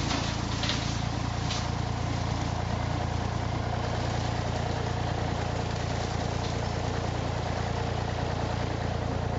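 1958 Massey Ferguson 35 tractor engine running steadily at a low, even speed, with a couple of faint clicks in the first two seconds.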